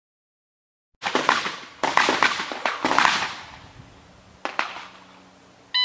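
A pistol caliber carbine, a Beretta CX4 Storm, fired in a quick string after about a second of silence. The shots come unevenly spaced, each with an echoing tail, with the last about four and a half seconds in. A short electronic beep sounds right at the end.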